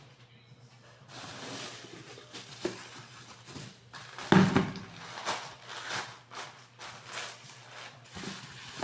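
Food packages and containers being handled and put back on refrigerator shelves: irregular rustling and light knocks, with one louder thud about four seconds in.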